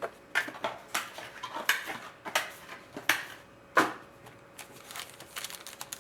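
Trading cards and their packaging being handled and shuffled by hand: about six sharp snaps with short rustles in the first four seconds, then softer, quicker rustling near the end.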